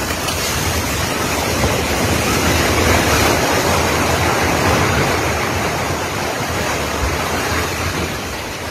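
Loud, steady roar of a multi-storey concrete apartment block collapsing in an earthquake, its concrete and debris coming down. The roar is loudest about three seconds in and eases slightly toward the end.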